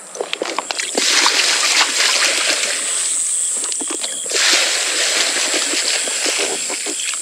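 Seawater splashing and sloshing in a folding rope bucket as it is hauled up and handled, with a dense rush of water from about a second in and short knocks of the bucket and gear.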